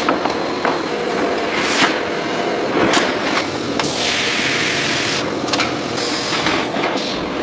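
Machinery clattering, with frequent sharp knocks and clicks, and a burst of hiss lasting about a second starting about four seconds in.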